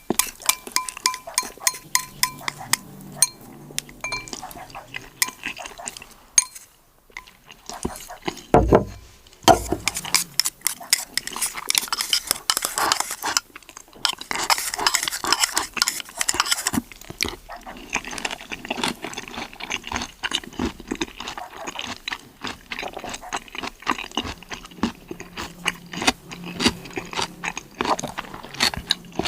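Close-up eating sounds of a seafood meal: a dense, irregular run of clicks, cracks and clinks from shells and utensils, with chewing. There is a short lull about seven seconds in, followed by a single low thump.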